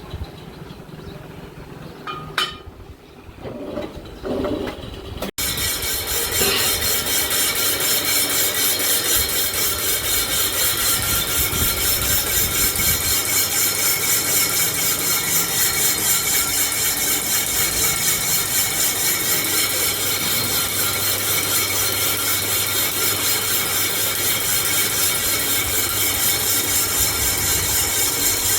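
Lathe machining a bike wheel's brake drum: from about five seconds in, the cutting tool scrapes steadily on the turning metal drum with a fast, even pulsing. Before that there are quieter mixed workshop sounds.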